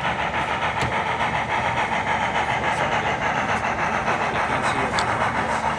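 HO-scale model of Strasburg steam locomotive No. 90 running with its onboard sound, a steady rhythmic chuffing over the general hum of a busy hall.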